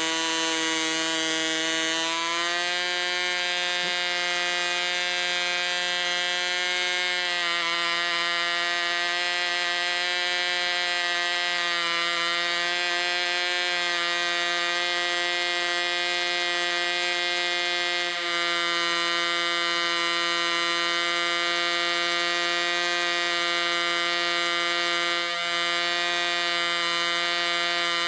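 Small two-stroke model-aircraft diesel engine on a 7x4 propeller running flat out from its 10cc tank with a steady high-pitched buzz. It settles slightly lower in pitch about two seconds in and again about seven seconds in.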